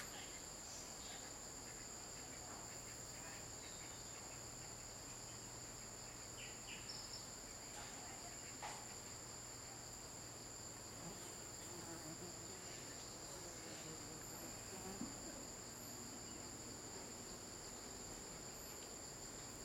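Steady, high-pitched drone of insects in chorus, holding several even pitches without a break, with a few faint clicks over it.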